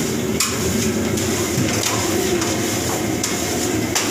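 Steady roar of kitchen ventilation and equipment, with a few short knocks or slaps.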